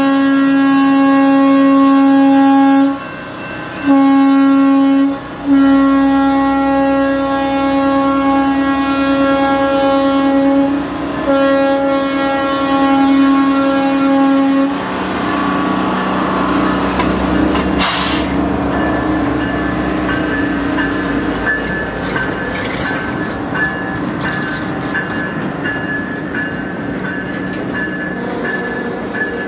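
Diesel locomotive horn sounding in several long blasts, loud and steady, breaking off about halfway through. Then the work train rumbles and clatters past over the rails, with a grade-crossing bell dinging steadily through the second half.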